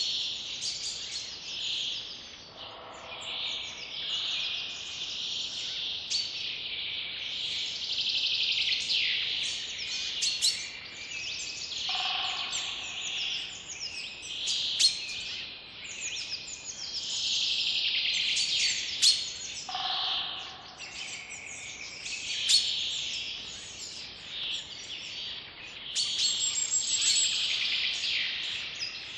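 Forest birdsong: many songbirds chirping and trilling at once in a dense, continuous chorus. A lower-pitched call comes three times, about eight to nine seconds apart.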